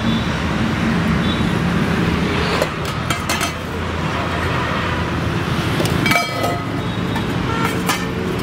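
Steady road traffic noise, with a few sharp metallic clinks of stainless-steel serving vessels and utensils: a cluster about three seconds in, one that rings briefly around six seconds, and more near the end.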